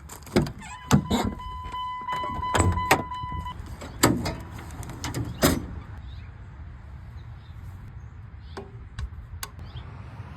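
A series of sharp knocks and clicks, with a steady electronic beep lasting about three seconds starting just under a second in, then a quieter low steady noise with a few scattered clicks.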